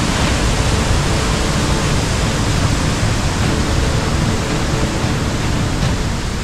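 Waterfall rushing steadily, a constant dense noise with no breaks.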